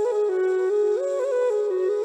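Background music: a solo flute-like melody moving in small steps between notes, with quick ornamental turns.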